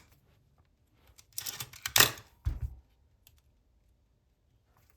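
Small metal clicks and scraping as the Canon F1's prism finder is slid onto the camera body, with a loud sharp click about two seconds in and another just after.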